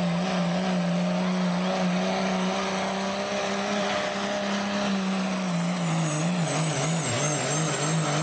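Dodge Ram turbo-diesel pickup running flat out under load while pulling a sled, with a steady high turbo whistle over the engine. From about six seconds in the engine note wavers and drops as the truck slows at the end of its pull, then picks up again near the end.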